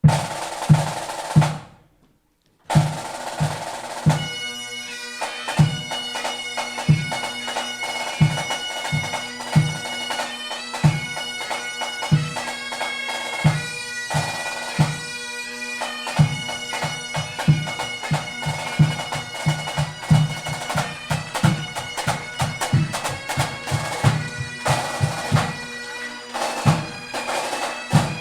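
A pipe band of bagpipes and drums playing. The pipes sound briefly, stop about two seconds in, then strike in again with the steady drones, the chanter melody entering over regular drum beats.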